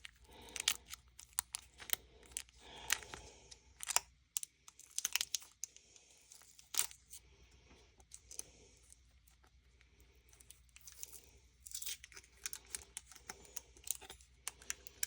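Plastic packaging crinkling and rustling with scattered small clicks and taps as small craft pieces are handled. It goes quiet for a few seconds in the middle, then the crinkling picks up again.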